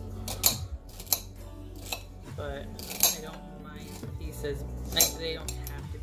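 Knife dicing celery on a plate, the blade knocking sharply and unevenly against the plate about every second.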